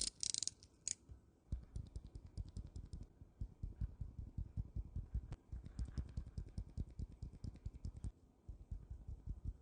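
Typing on a mechanical keyboard fitted with Outemu switches: a few sharp clicks in the first second, then fast continuous keystrokes with a short pause about eight seconds in.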